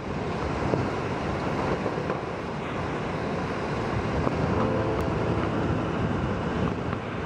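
Hurricane-force wind and driving rain: a steady, dense rush of noise with wind buffeting the microphone.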